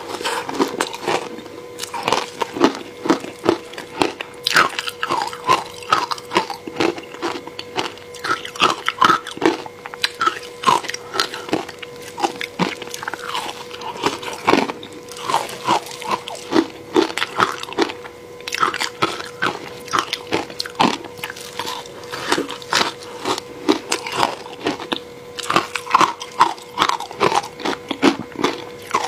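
Close-miked biting and chewing of crushed frozen matcha ice: dense, irregular crisp crunches in quick clusters. A faint steady hum sits underneath.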